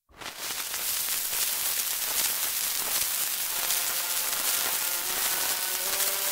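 Crackle and hiss of an old shellac disc's surface noise, from a recording of about 1917–1919. Faint notes of the band's opening music come in over the crackle about four seconds in.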